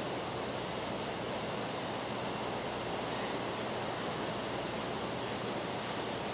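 Steady rushing outdoor background noise, like wind on the microphone, with a low steady hum beneath it and no distinct sounds.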